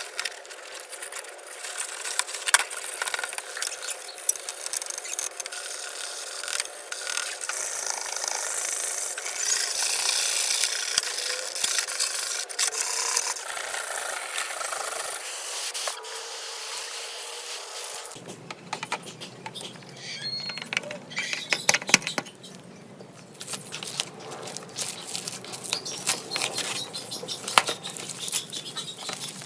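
Rubbing and scraping of small hand tools on a hard part, with many sharp clicks. The sound changes abruptly about two-thirds of the way through, as if cut to another step.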